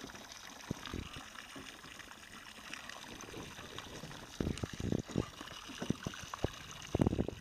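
Water lapping and trickling against the hull of a wooden rowboat, close to the microphone. From about halfway through come irregular knocks and thumps on the boat as people step across it and climb out, loudest near the end.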